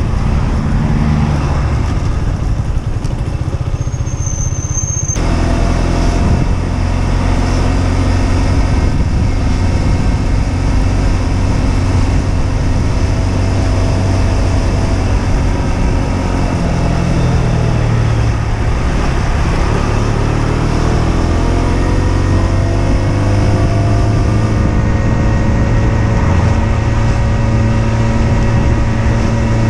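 Husqvarna Svartpilen 125's single-cylinder four-stroke engine running on the road. Its pitch drops about halfway through, then climbs as the bike accelerates.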